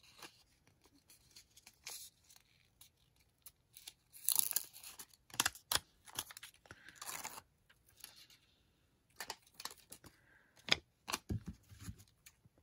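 A sheet of paper planner stickers being handled and peeled: scattered short rustles and scrapes of paper with light taps, loudest about four to seven seconds in and again near the end.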